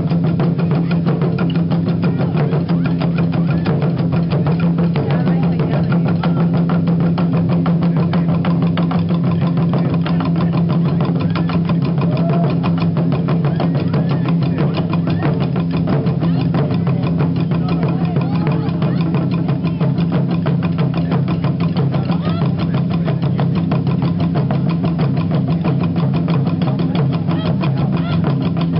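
Japanese taiko drums played by an ensemble, sticks striking the drumheads in a fast, unbroken stream of loud beats.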